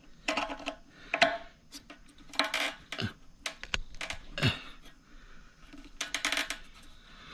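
Irregular clicks, clinks and light rattles of small hard parts being handled as the fuel pump's electrical connector is worked back into place.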